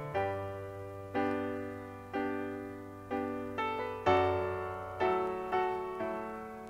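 Piano music: struck notes and chords that each ring and fade, about one a second at first and coming quicker after about three and a half seconds.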